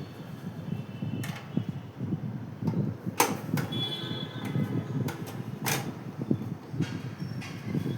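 Handling noise: a low rustle with scattered sharp clicks and knocks, three of them louder than the rest.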